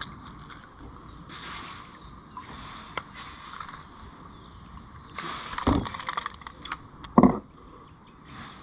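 Fishing reel and tackle clicking and rattling as a hooked peacock bass is brought to a kayak and lifted out with a fish grip, with two loud thumps a little under six and a little over seven seconds in.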